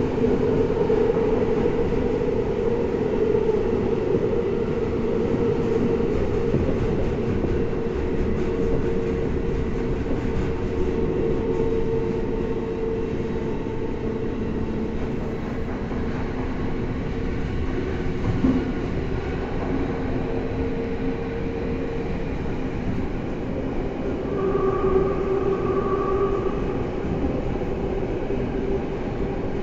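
Tokyo Metro Tozai Line subway train running between stations, heard from inside the car: the steady rumble of wheels on rail with the tone of its permanent-magnet synchronous traction motors. The motor tone fades about two-thirds through, and a higher tone sounds briefly near the end.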